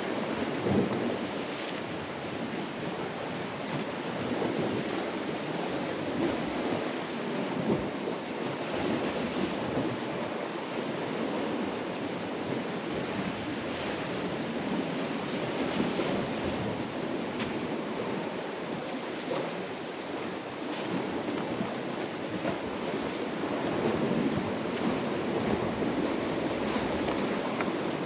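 Sea surf washing against a rocky shore, a steady rushing noise that swells and eases, with wind on the microphone.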